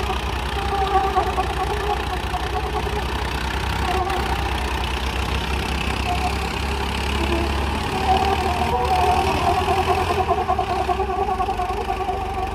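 Tractor diesel engines running, from a Swaraj 744 and a John Deere 5210, both three-cylinder diesels, with a steady fast firing pulse. The engine note gets a little louder about eight seconds in.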